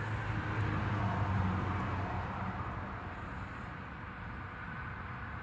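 A car passing on the road, its engine and tyre noise swelling to its loudest about a second in and then fading, over a steady low hum.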